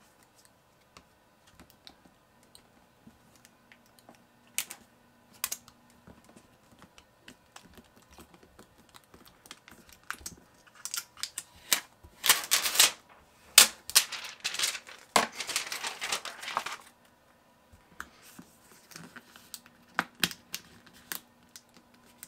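Small clicks and taps of hand work on an open 2015 MacBook Pro as the new battery is fastened down, with a denser, louder stretch of clicking and rustling about halfway through.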